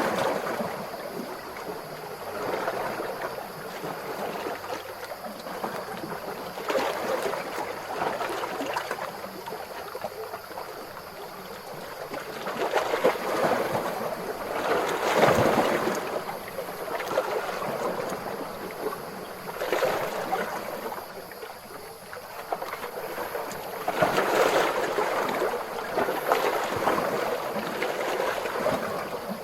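Calm ocean waves washing in and drawing back, a steady rush of water that swells every few seconds, with the biggest surge about halfway through.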